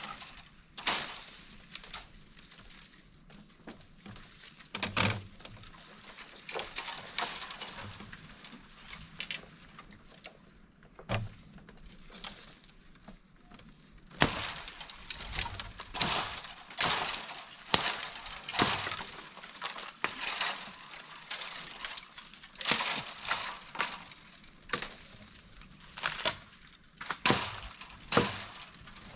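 Irregular sharp knocks, cracks and snaps of hand work on wood or bamboo, coming in busy clusters in the second half. A steady high-pitched whine runs behind them, fades out about halfway and returns near the end.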